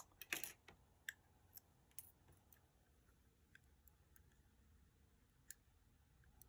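Scattered small clicks of tweezers and tiny lock pins from a disassembled Defiant lock being handled, several close together in the first second, then single clicks a second or more apart.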